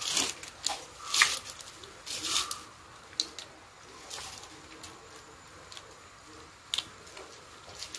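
Raw blue swimmer crab being pulled apart by hand during cleaning: a handful of sharp cracks and wet tears of shell and flesh, most in the first three seconds and one more near the end.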